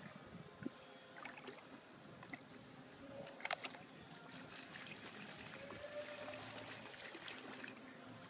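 Faint splashing and dripping of a wooden paddle dipping and pulling through calm water, with a sharper click about halfway through.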